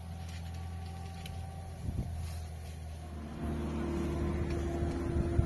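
An engine running steadily with a low hum, turning louder and higher-pitched about three and a half seconds in, with a couple of short knocks.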